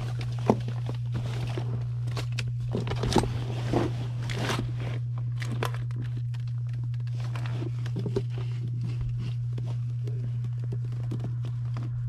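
Scattered plastic clicks and knocks as hands handle a clear plastic suction cup and its tubing, over a steady low hum.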